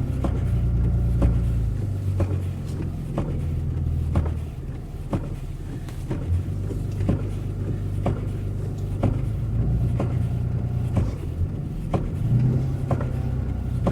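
Pickup truck engine running under load as the truck drives through deep, heavy snow, its note shifting up and down, with scattered knocks and clicks.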